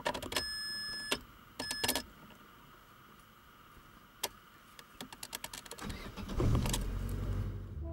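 Opel Astra G being started. Two short electronic beeps and key clicks sound as the ignition is switched on. The starter then cranks for about a second and a half, and the engine catches loudly about six and a half seconds in and settles toward idle.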